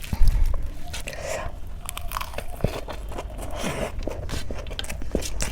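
Close-miked eating: crunchy bites and chewing, with many small sharp crackles.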